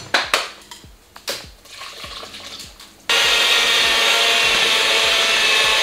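A few knocks and clatter, then about three seconds in an electric hand mixer switches on and runs steadily at one speed, its beaters working yeast dough in a plastic bowl.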